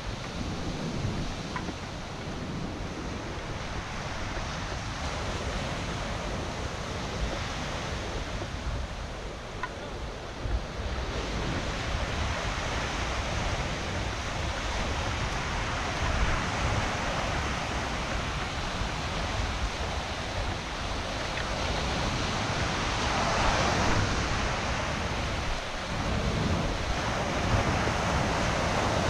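Wind buffeting the microphone over the steady wash of breaking sea surf. The surf grows louder in the second half.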